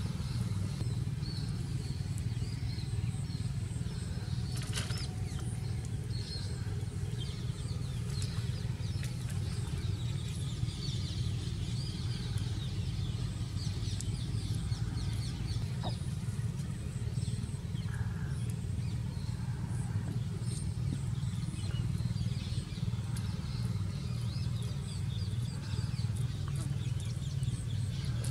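A steady low mechanical hum, with faint high chirps scattered over it and a single sharp click about five seconds in.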